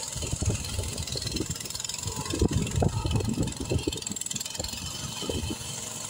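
Homemade trike's walk-behind-tractor engine running at low revs, with an uneven low pulsing.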